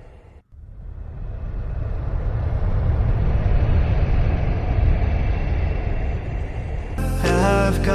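Wind blowing over the microphone, a low rumbling noise that cuts out briefly about half a second in and then builds up again. Music comes in near the end.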